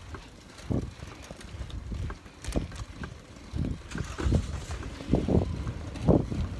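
Irregular low rumbling thumps of wind and handling noise on a hand-held phone's microphone as it is carried along at a walk, swinging with the arm.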